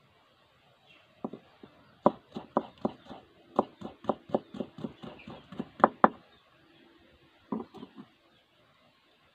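Kitchen knife chopping on a wooden chopping block: a run of sharp knocks about four a second, a short pause, then a few more quick strokes near the end.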